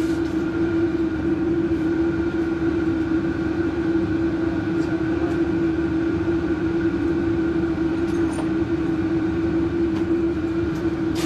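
Steady, even machine hum held at one constant pitch, with a few faint clicks on top.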